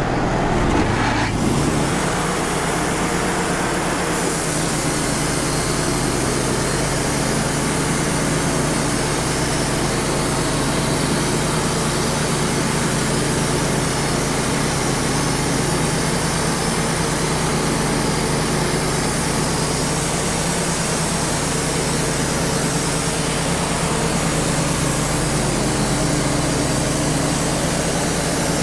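Wood-Mizer LT35 portable band sawmill running steadily, its band blade sawing through a pin oak log, with the half-horsepower sawdust blower going. The sound fills in about a second in and then holds level.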